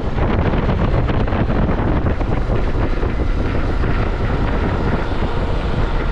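Heavy, steady wind noise buffeting the microphone on a moving Honda XRE 300 motorcycle, mixed with the bike's running and road noise.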